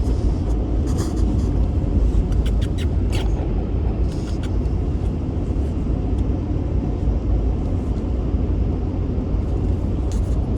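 Steady low road rumble of a moving car, heard from inside the cabin, with a few brief rustles and clicks about a second in and again around three to four seconds in.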